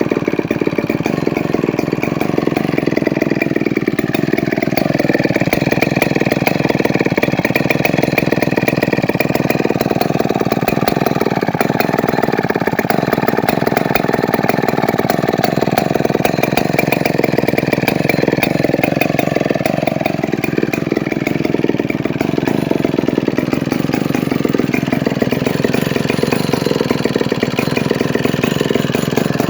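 Chainsaw engine running steadily at speed, its pitch sagging and then climbing back up three times.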